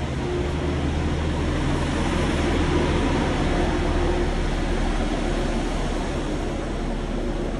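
A large truck's engine drones steadily as it passes on a city street, over general traffic noise. The sound swells a little in the middle and eases off toward the end.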